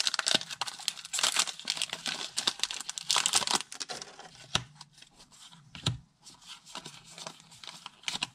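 Foil wrapper of a Pokémon TCG booster pack crinkling as it is opened and the cards pulled out. The crinkling is dense for the first few seconds, then thins to scattered crackles and a few sharp ticks.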